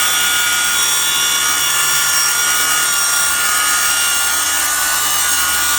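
Twin-battery cordless track saw running at full speed through a cut, its motor and blade making a loud, steady whine that holds one pitch.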